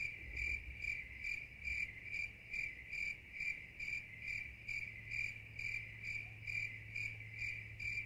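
Insect chorus: a continuous high trill that swells in regular pulses about twice a second, over a faint steady low hum.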